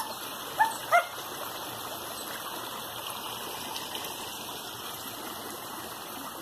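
A dog gives two short, high yelps in quick succession within the first second, over the steady running of a small forest stream. The dog is whining at a stream it is reluctant to cross.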